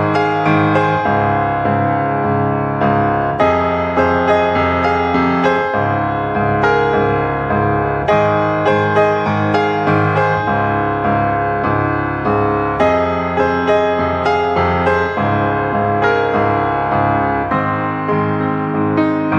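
Background piano music, a continuous run of struck notes and chords.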